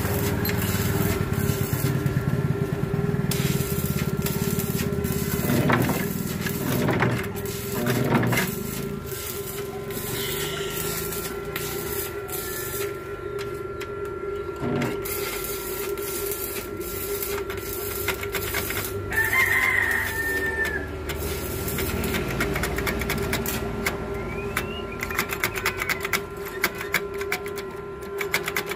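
Metal clicks and scrapes from a screwdriver working the terminal screws of a lathe's rotary forward-reverse switch, over a steady hum. A rooster crows once about 19 seconds in.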